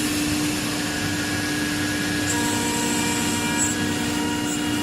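CNC router running steadily: a constant hum and whine that holds its pitch, with a faint high whine joining about halfway through.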